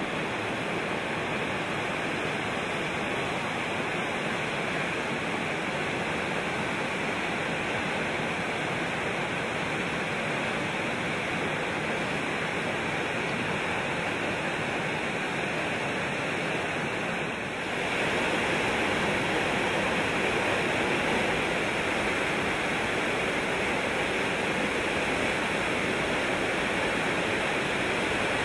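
Floodwater pouring over a rocky waterfall in full spate: a steady, even rush of water that gets louder about two-thirds of the way through.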